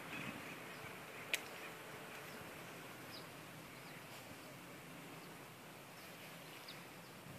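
Faint outdoor ambience: a steady hiss with a few short, faint bird chirps scattered through it, and one sharp click about a second and a half in.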